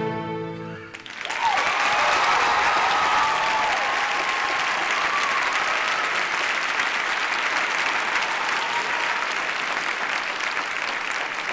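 The last chord of a string ensemble with violins rings out and stops about a second in. An audience then breaks into steady applause with some cheering.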